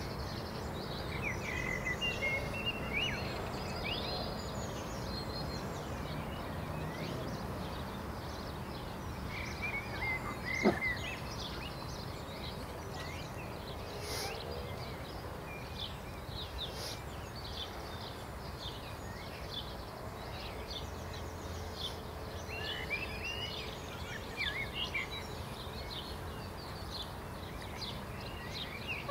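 Small birds chirping and singing in scattered short phrases over a steady low background rumble, with one brief sharp knock about ten seconds in.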